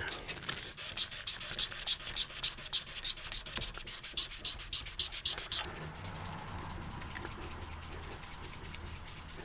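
Hand sanding a wooden knife handle with 400-grit sandpaper: quick, even back-and-forth strokes at about seven a second. A little over halfway through, the strokes turn softer and smoother.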